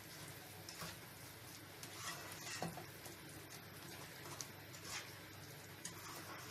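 A spatula stirring fried cauliflower through a bubbling gravy in a nonstick pan: a few soft scrapes and clicks over a faint steady hiss.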